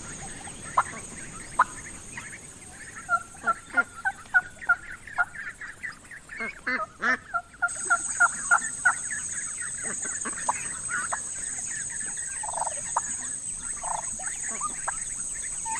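Domestic turkey calling in short, sharp clucks, many in a quick run through the first half and scattered ones later. A steady high-pitched buzz sits behind them and gets louder about halfway through.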